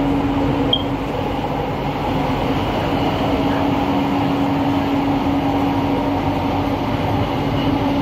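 Interior of an LRT Jabodebek train running on its track: a steady rumble from the running gear with a constant hum over it.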